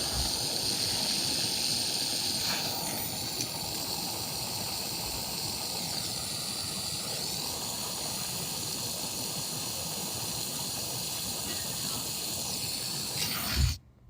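Small watchmaker's lathe running, a steady hiss with a high whine that wavers slightly in pitch. It stops abruptly with a thump near the end.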